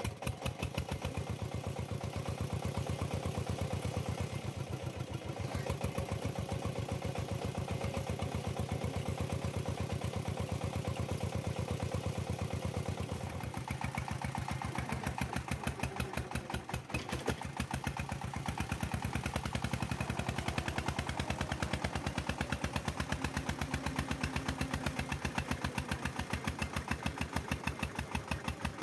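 Single-cylinder diesel engine of a two-wheel walking tractor running steadily with an even, rapid beat of firing strokes as it hauls a heavily loaded trailer up a dirt slope; the sound shifts a little about halfway through.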